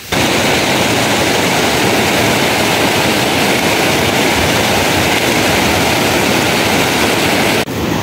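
Fast, shallow mountain river rushing over stones: a loud, steady rush of water that cuts in just after the start and stops abruptly near the end.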